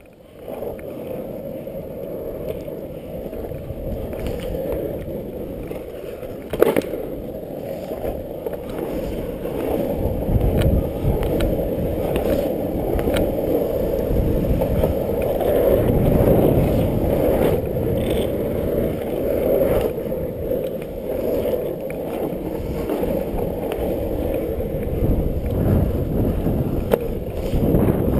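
Loaded Dancer longboard rolling on asphalt: a steady wheel rumble that grows louder about ten seconds in, with a few sharp clicks, the sharpest about seven seconds in.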